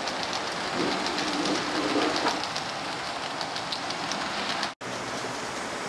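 HO-scale model train of coal hopper cars rolling along the track, its wheels clicking in a quick, even rhythm over the rail joints. About five seconds in the sound cuts off abruptly and gives way to a steady hiss.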